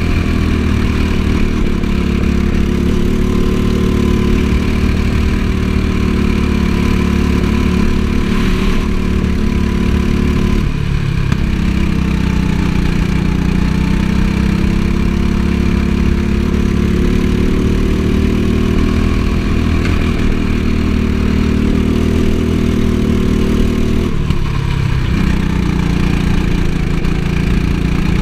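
Go-kart engine running hard, heard from the driver's seat. Its note drops sharply twice, about eleven seconds in and again about twenty-four seconds in, then climbs back as the kart accelerates again.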